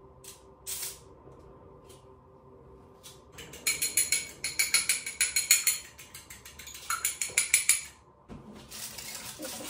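Egg being beaten in a small ceramic bowl: a utensil clinking rapidly against the bowl in quick strokes, with a short break partway and a stop near the end. Before it come a few light clicks and rustles.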